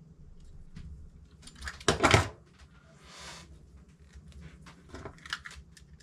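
Small clicks of a blade cutting around the outer jacket of an NMEA 2000 micro cable and of the cable being handled. There is a louder scrape about two seconds in, a softer hiss a second later and a few more clicks near the end.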